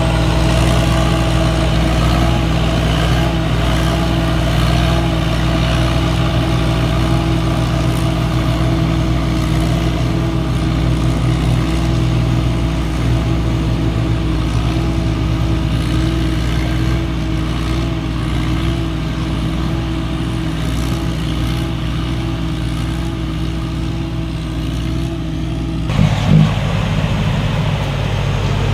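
Engine of a T. Charoen Kanchang 2017 tracked rice combine harvester running steadily under load while it harvests. About 26 seconds in the sound changes abruptly to a closer, deeper engine note with a brief knock.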